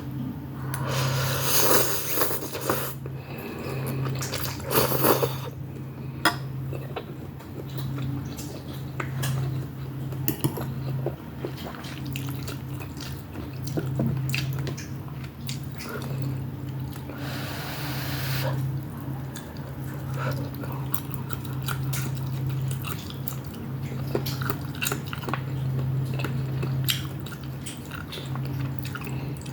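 Close-miked chewing and eating of Shanghai noodles with beef: wet clicks and smacks, with a few longer noisy bursts near the start and about two-thirds through, over a steady low hum.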